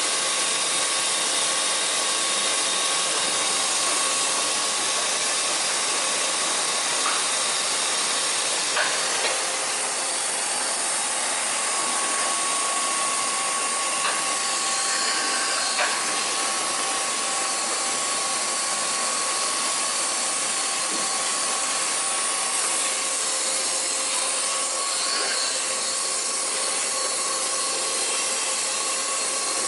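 Kuraki KBT-11WA CNC horizontal boring mill running: a steady hiss with a thin, steady whine, and a few light clicks.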